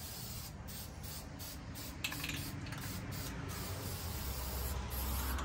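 Aerosol spray can of rust reformer hissing in a run of short bursts with brief breaks between them. A low rumble sits underneath and grows louder near the end.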